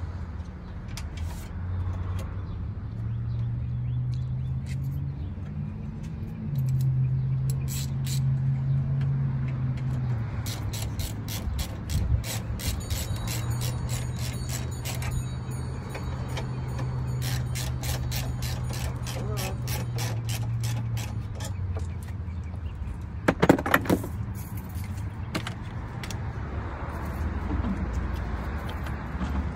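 Socket ratchet clicking in quick, even runs while a new car battery's terminal clamps and hold-down are tightened, then a single metallic clank about three-quarters of the way through. A steady low hum sits underneath.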